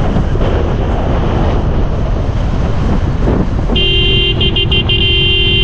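Steady rumble of wind and road noise from travel on a road, with a vehicle horn sounding about two-thirds of the way in, stuttering briefly and then held.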